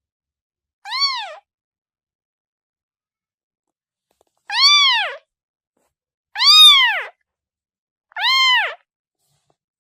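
A kitten meowing four times in separate calls spaced a second or more apart. Each call is high-pitched and rises then falls in pitch.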